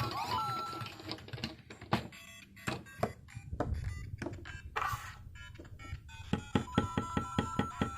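LEGO Luigi interactive figure playing electronic game music and beeps through its small built-in speaker, mixed with sharp plastic clicks and knocks as the figure is moved over the LEGO bricks and tiles. Near the end comes a fast run of clicks and beeps, several a second.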